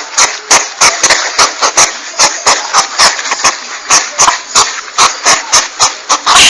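Porcupine (landak) calls used as a hunting lure: a rapid, even run of short, harsh, noisy strokes, about four to five a second, with a hiss between them.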